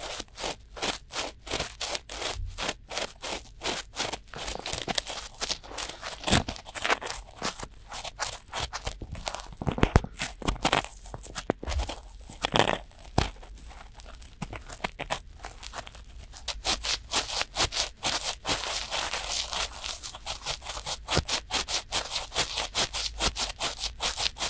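Cotton swabs rubbing and scraping in both ears of a binaural microphone at once, close-up, in quick repeated scratchy strokes.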